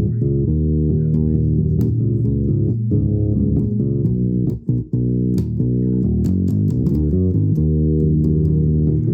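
Improvised playing on a low-pitched plucked string instrument: a continuous run of notes with sharp plucked attacks, broken by a brief pause about four and a half seconds in.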